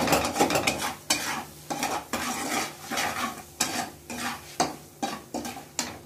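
Spatula stirring and scraping ground spices in butter around a non-stick kadai, about two strokes a second, with the butter sizzling as coriander powder, turmeric and salt roast lightly.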